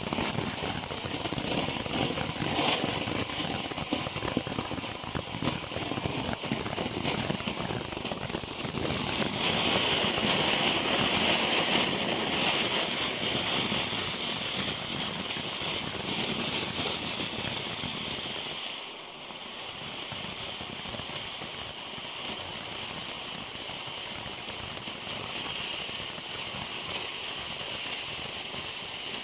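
Low-noise ground fountain fireworks spraying sparks: a continuous hiss peppered with fine crackling. It grows louder about a third of the way in, then dips briefly about two-thirds through.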